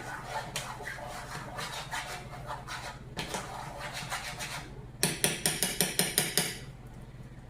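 A metal kitchen utensil scrapes and clicks against a cooking pot. Then, about five seconds in, comes a rapid run of about nine sharp knocks of metal on the pot over a second and a half.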